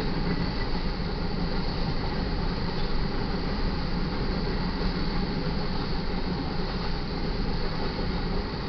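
Freight train's covered hopper cars rolling past at a grade crossing: steady rumble and rush of steel wheels on the rails.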